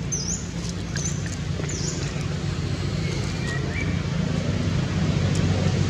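A steady low motor-like hum that grows louder toward the end, with a few short, high chirps that dip and rise in the first two seconds.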